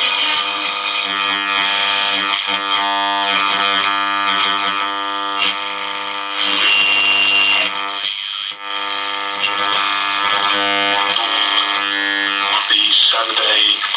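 Music from a broadcast station playing through the small loudspeaker of a 1947 Astor Mickey KM valve radio, the set now receiving after restoration. The music is steady, with a brief break about eight seconds in.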